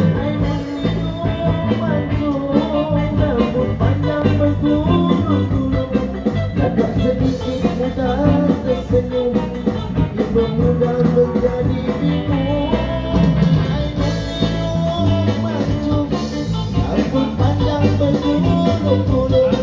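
Live band of electronic keyboard, electric bass guitar and acoustic guitar playing a sixties-style Malay pop tune.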